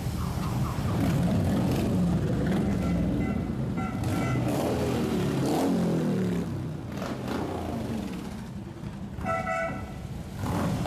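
A parade of V-twin cruiser and touring motorcycles rumbling past at low speed, one engine note sweeping down about five to six seconds in. A horn toots a few times about three to four seconds in and once more near the end.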